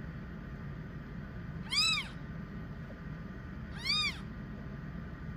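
A newborn kitten mews twice, about two seconds apart. Each mew is short and high, rising and then falling in pitch.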